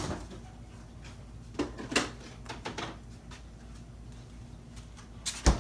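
Kitchen items being put away off-camera: scattered knocks and clicks of things being handled and set down, with a louder, deeper thump near the end.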